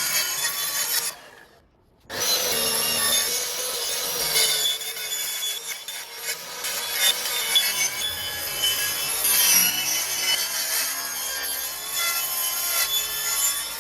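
Track saw cutting along the edge of a wooden internal door to trim it to size: a steady motor tone under dense sawing noise. It stops briefly about a second in, then runs on, and the motor winds down near the end.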